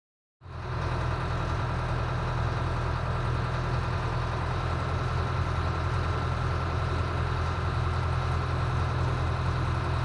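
Boat's engine running steadily under way, starting about half a second in.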